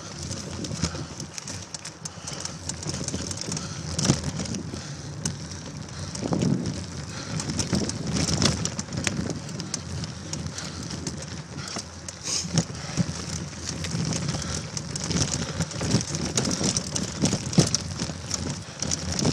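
Bicycle riding fast over a leaf-covered trail: tyres crackling through dry leaves, with frequent knocks and rattles from bumps.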